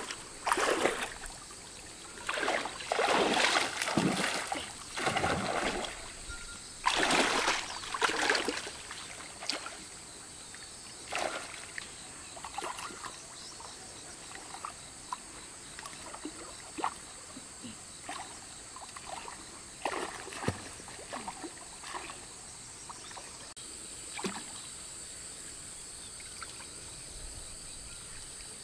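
Water splashing and sloshing in several loud surges over the first eight seconds or so, as a fishing net is worked in a lake, then scattered small knocks and drips. A steady high hiss runs underneath.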